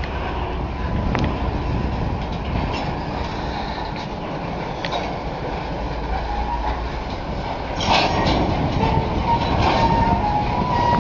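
Freight cars rolling slowly through a rail yard during switching: a steady rumble with wheels clicking over the rail joints, and a loud clank about eight seconds in. Near the end a thin wheel squeal comes in.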